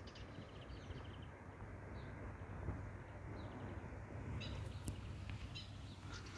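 Small birds chirping, with a quick trill in the first second and a cluster of sharper chirps about four to five seconds in, over a steady low rumble.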